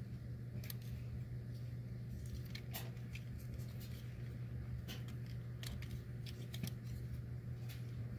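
Plastic parts and ratcheting joints of a Transformers Studio Series Blackout action figure clicking now and then as its limbs and panels are bent and repositioned by hand. A steady low hum runs underneath.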